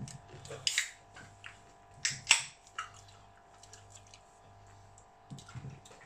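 People eating shrimp and crab with their hands: scattered clicks and smacks of shells being peeled and food being chewed, with one sharper crack about two seconds in, over a faint steady hum.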